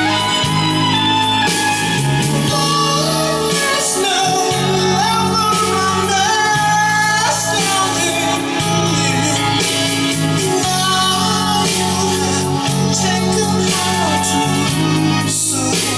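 A song playing: a singer over guitar and a bass line that changes note every second or so.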